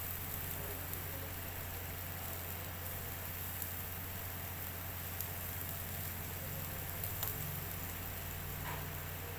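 Beef satay sizzling over a charcoal grill, a steady hiss with a few light clicks as the bamboo skewers are turned. A steady low hum runs underneath.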